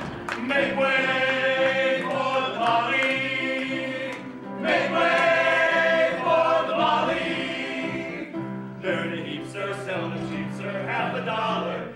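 Stage cast singing together as a chorus over instrumental accompaniment, in long held phrases with a short break about four seconds in.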